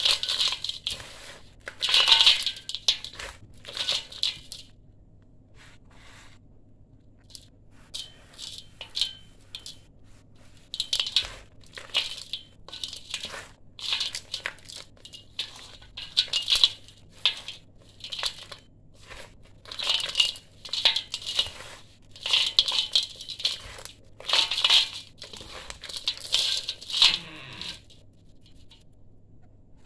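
Dry sand-and-cement mix crunchy as it is crumbled between the hands and sifted back into a stainless steel bowl, in irregular bursts of gritty crumbling and falling grains. There is a lull about five to seven seconds in, and the sound stops shortly before the end.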